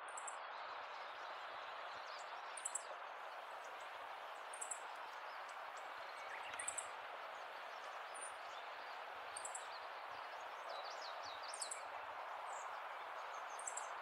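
A small songbird repeating a short high chirp about every two seconds, with a quick run of twittering notes about eleven seconds in, over a steady background hiss.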